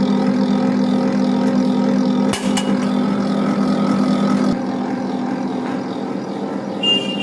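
Electric wire stripping machine running with a steady hum as a long wire is fed through and stripped. A sharp click comes a little over two seconds in, and the hum eases slightly a little past halfway.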